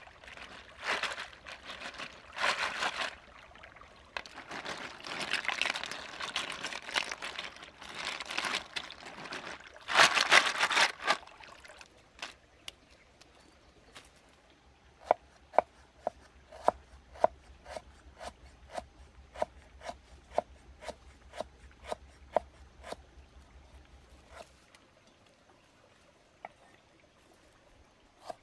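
Live snails scrubbed together in water in a bamboo basket: wet splashing and swishing with the shells clattering and grinding, coming in bursts for about the first eleven seconds. After that comes a quieter run of sharp ticks, about three every two seconds.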